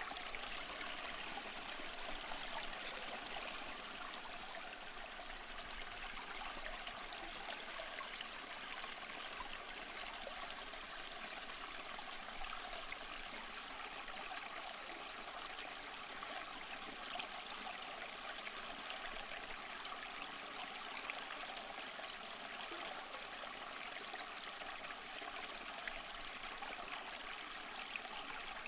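A small stream running steadily, water trickling and babbling over stones.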